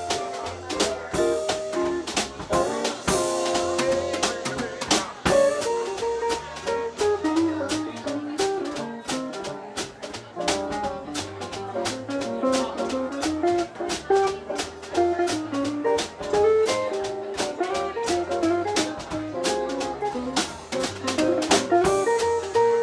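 Jazz band music: a drum kit keeping a steady beat with sharp hits, under a bass line and a wandering melody.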